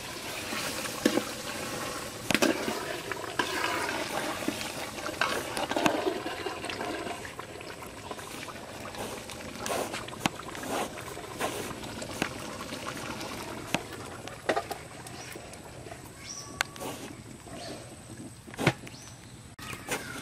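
Rushing, splashing water, strongest in the first half, with scattered sharp clicks and knocks.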